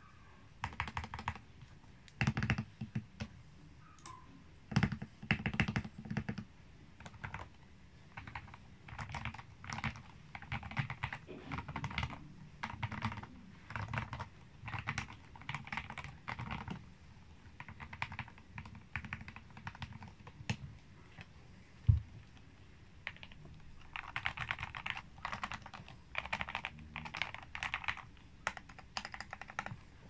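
Typing on a modded Royal Kludge RK68 mechanical keyboard with lubed RK Red linear switches, foam-filled case and PBT keycaps: runs of quick, muted keystrokes in bursts, with a few deeper, louder strokes and one sharp knock about two-thirds of the way through.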